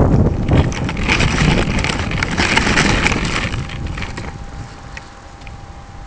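Wind buffeting the RC plane's onboard camera microphone, with gritty scraping and small clicks as the model slides over the pebbly sand after a crash. Loudest at the start, it dies down over the last couple of seconds.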